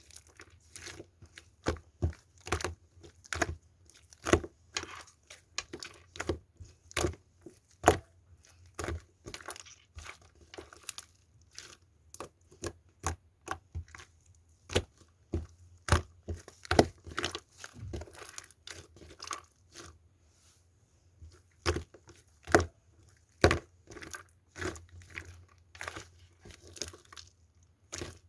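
Slime being squeezed and pressed by hand, giving irregular sharp pops and crackles of trapped air, a few a second, with a brief lull about twenty seconds in.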